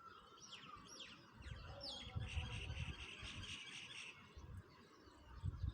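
Songbirds chirping: several quick falling chirps in the first two seconds, then a buzzy trill from about two seconds in to about four seconds. A low rumbling noise runs underneath from about a second and a half in and returns near the end.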